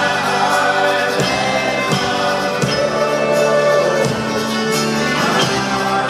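Live folk-rock band playing: banjo and singing voices over a steady drum beat.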